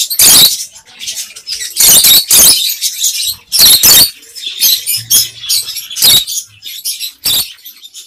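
Rosy-faced lovebirds in a cage giving shrill, squeaky calls in quick succession, about a dozen short bursts with brief pauses between them.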